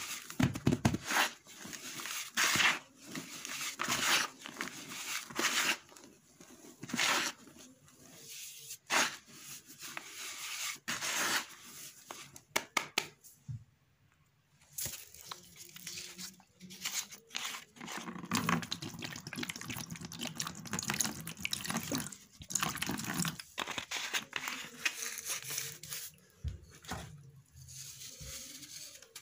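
Dry sand-and-cement mix crumbled and rubbed between the hands: gritty crunching and sifting in quick bursts, with a short pause about halfway through.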